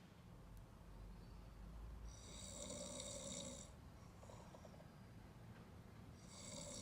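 Mixed-breed dog snoring faintly in its sleep: one snore about two seconds in and another starting near the end.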